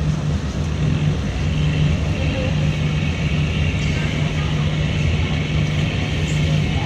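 Car ferry's engines running steadily with a low, even drone while the ferry docks at the pier.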